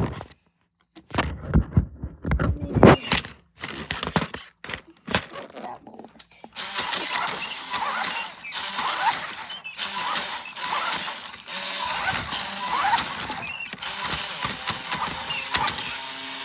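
Toy RC car's small electric motor and gears whining as the car drives, with a bright high whine that cuts out briefly a few times as the throttle is let off and applied again. Knocks and clatter of the car being handled come before it starts driving, about six seconds in.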